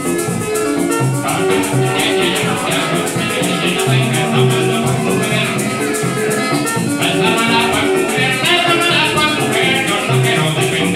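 Venezuelan joropo tuyero: an arpa tuyera plucking fast runs and chords over maracas shaken in a steady driving rhythm.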